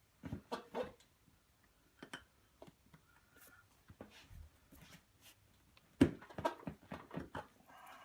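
Scattered short knocks and clicks of parts being handled: a few in the first second, single ones around two and four seconds in, and a louder flurry about six seconds in.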